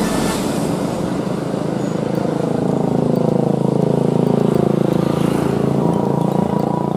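Diesel engine of a large bus pulling through a bend. From about two seconds in, its note gets louder and steadier, and its pitch dips and then climbs again.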